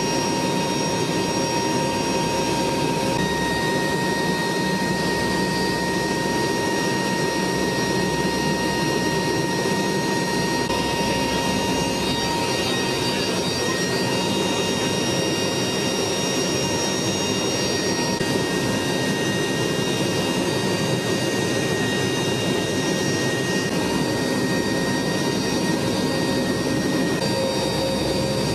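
Steady cabin noise of an HC-130's four turboprop engines in flight, heard inside the cargo hold: a loud even rumble with several high steady tones over it.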